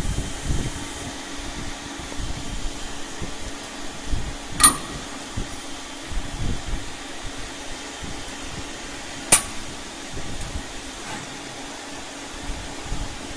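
Steady hum of a CNC machine running, broken twice by a sharp metallic clank with a short ring, about four and a half seconds apart, from the machine's pneumatic part-loading mechanism.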